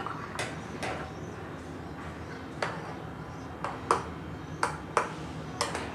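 Metal spoon stirring a thick cream mixture in a glass dish, clinking sharply against the glass about nine times at uneven intervals.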